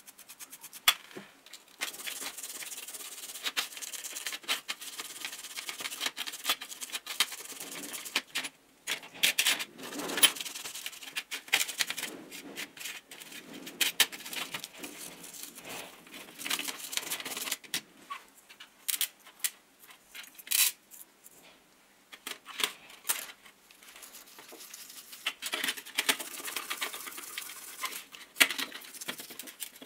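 A stiff plastic brush scrubbing small steel parts of a hex driver in a shallow stainless steel tray of liquid, with frequent irregular clinks of metal parts and loose steel balls against the tray and each other. The scrubbing stops briefly twice, with a pause in the middle.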